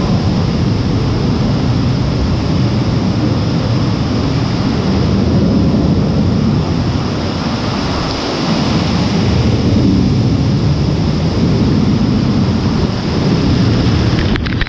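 Loud, steady rush of churning water with a low, uneven rumble underneath.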